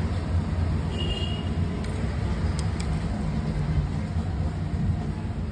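Steady low rumble of a running motor vehicle engine, with a few faint clicks.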